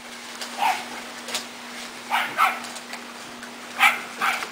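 Pembroke Welsh corgi puppies giving short yips and barks, about six spread through a few seconds, some of them falling in pitch.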